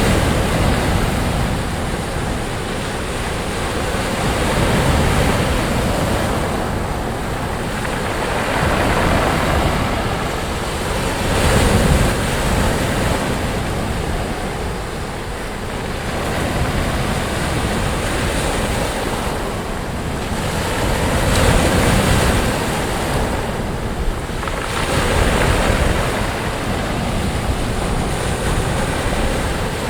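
Ocean waves breaking and washing up on a sand beach, the surf swelling and easing every few seconds, with wind on the microphone.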